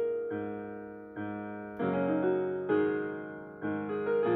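Background piano music: slow chords struck about once a second, each left to fade before the next.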